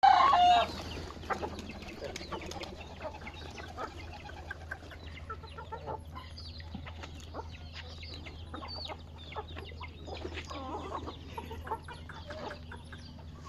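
Chickens clucking: a loud half-second call right at the start, then scattered soft clucks and chirps.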